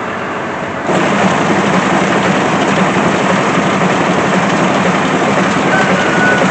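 Tractor engine running, then about a second in the PTO engages and the round baler starts running empty. The sound jumps suddenly louder and stays steady as the newly spliced belts and rollers turn.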